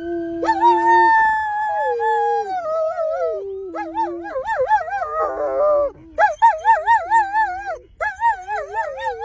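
Dogs howling: long howls that slide downward in pitch in the first half, then from about the middle a series of quickly wavering, yodel-like howls broken by short pauses.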